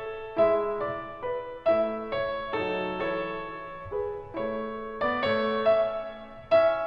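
Background piano music: a gentle melody of struck notes that each fade after they are played.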